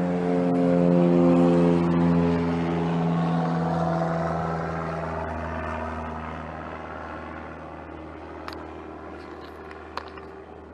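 Engine of a passing vehicle: a steady hum, loudest in the first few seconds, that slowly drops in pitch and fades away. A couple of small clicks near the end.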